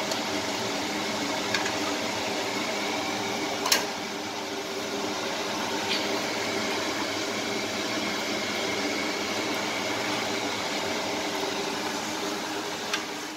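Steady whirring hum of a kitchen exhaust fan running, with a few light clicks of a steel ladle against the pan.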